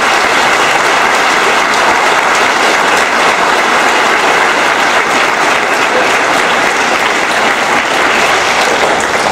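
A large audience applauding steadily, with many hands clapping at once.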